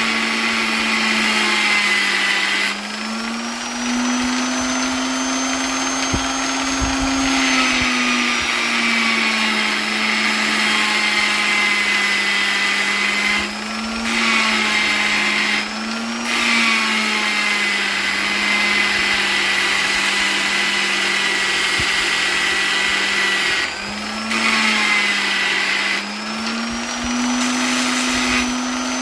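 Electric polisher running continuously with a steady motor hum and a hiss over it. The hiss drops out several times, each time for between half a second and about four seconds, and the level dips as the motor's pitch rises; the pitch settles lower again when the hiss returns.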